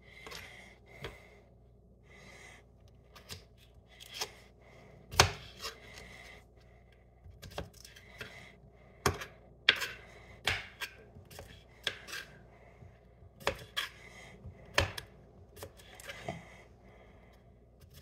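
Small kitchen knife chopping cucumber into small chunks on a cutting board: irregular sharp knocks of the blade through the cucumber onto the board, the loudest about five seconds in.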